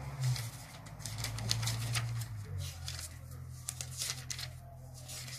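Thin Bible pages being leafed through, a run of quick paper rustles and flicks. A steady low hum runs underneath.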